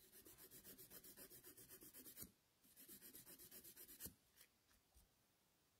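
Hand nail file rasping back and forth across a fingernail in faint, quick strokes, about seven a second, in two runs separated by a short pause.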